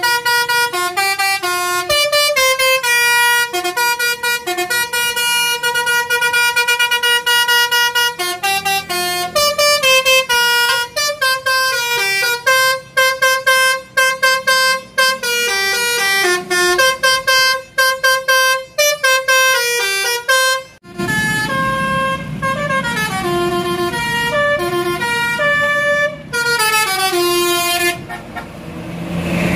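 Indonesian bus 'telolet' musical air horn playing a fast melody, several horn tones stepping up and down in pitch. About two-thirds of the way in, a low rumble joins beneath the melody.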